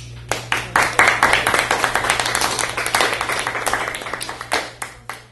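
An audience applauding: many hands clapping. The clapping builds within the first second and thins out toward the end.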